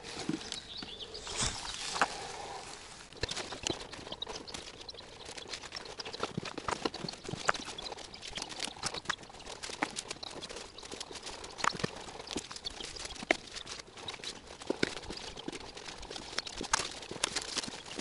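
Grass and leaves rustling and crackling in many irregular sharp clicks as a person pushes through the vegetation and picks among it by hand.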